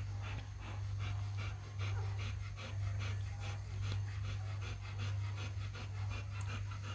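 Golden Retriever panting in quick, even breaths, about four or five a second, over a steady low hum.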